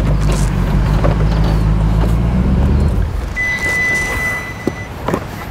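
Four-wheel drive's engine running hard under load as it loses traction and digs into soft sand, then dropping away about three seconds in as the driver backs off. A steady high electronic beep follows for about a second and a half.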